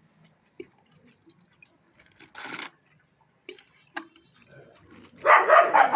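Scattered faint clicks and a short rustle, then about five seconds in dogs break into loud barking.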